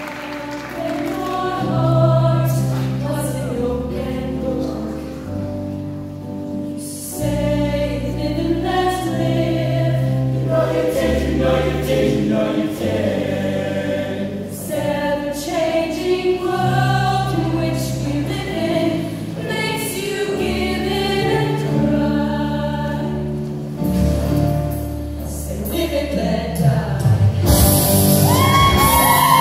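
Show choir singing a number in full chorus over instrumental accompaniment with a steady bass line. Near the end, high whoops rise above the music.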